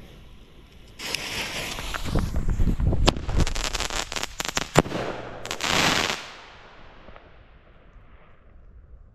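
Single-shot firework going off after being lit: about a second in, a long rushing hiss with several sharp cracks starts, the loudest crack coming about five seconds in, then a short final burst of crackle that fades away over the next two seconds.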